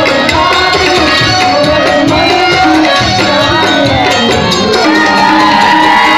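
Live folk music: a man singing into a microphone over tabla and a barrel drum (dholak) played in a steady rhythm, loud through a PA.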